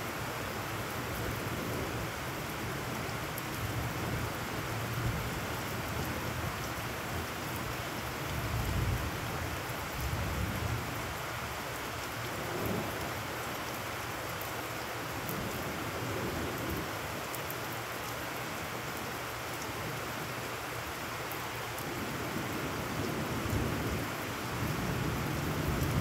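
Heavy rain falling steadily on puddled ground, an even hiss, with low rumbles of thunder swelling up about a third of the way in and again near the end.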